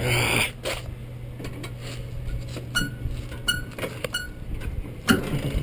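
Yellow sheet-steel cover of a Vermeer SC60TX stump grinder being handled: a scraping rasp as it moves at the start, then three light metallic clinks and a couple of sharp knocks near the end, over a steady low hum.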